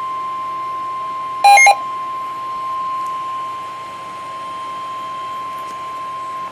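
NOAA Weather Radio warning alarm tone: one steady, loud, high-pitched tone held for several seconds that cuts off suddenly, signalling that a warning message follows. About one and a half seconds in, a short, louder electronic beep sounds over it.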